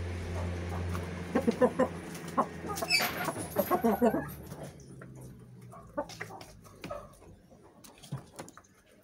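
Aseel chickens clucking in short bursts, loudest about one and a half seconds in and again around three to four seconds, with a brief rustling burst near three seconds; after that, only faint scattered ticks and scratches.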